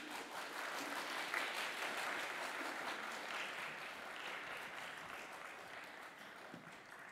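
Audience applauding, loudest at first and then slowly dying away.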